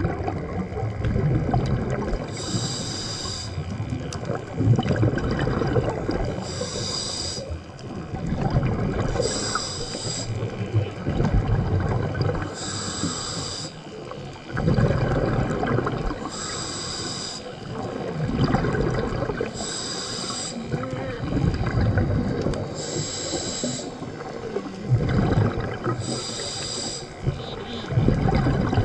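Scuba diver's regulator breathing underwater: a hissing inhale about every three seconds, nine times, alternating with bubbling exhales.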